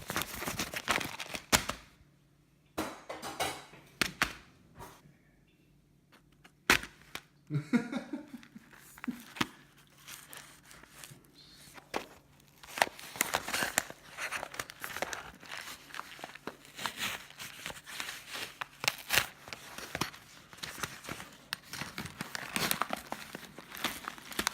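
Packaging being unwrapped and parts handled: crinkling and tearing of wrapping with irregular clicks and knocks, paused twice early on by short quiet spells.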